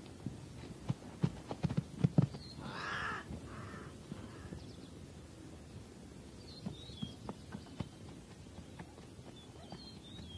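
Zebra stallions fighting: several dull thuds in the first two seconds or so, then a harsh bark-like call about three seconds in.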